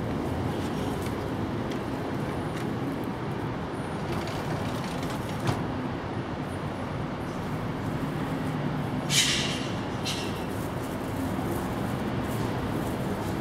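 Steady low background rumble. About nine seconds in, a brief hissing burst is the loudest sound, with a fainter one a second later.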